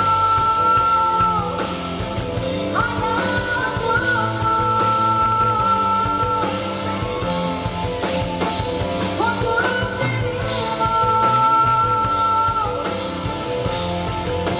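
A live band playing a duet song, with a melody of long held notes that slide up into each new phrase, over full accompaniment and singing.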